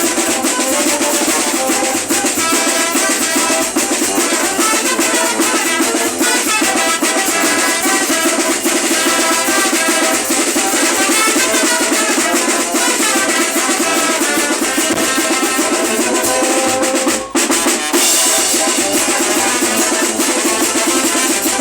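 A Mexican carnival banda playing loud music, with drums keeping a steady beat under the melody. The sound drops out briefly about 17 seconds in.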